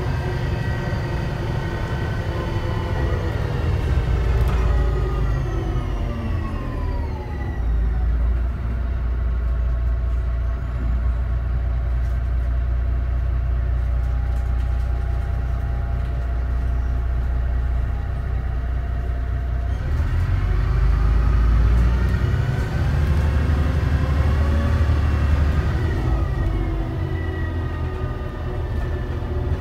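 DAF DB250 double-decker bus running: its engine and transmission whine fall away as it slows about a quarter of the way in, settle to a steady low running note through the middle, then climb again as it pulls away, with a gear change near the end.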